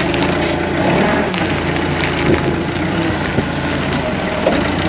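Mitsubishi Grendia LPG forklift's engine running steadily as the forklift backs up and turns on gravel, with scattered crackles and ticks over the engine.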